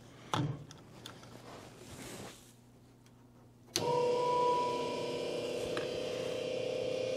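A few handling knocks, then, about four seconds in, a welding positioner turntable's electric drive is switched on and runs with a steady hum, a higher whine fading out after a second or so.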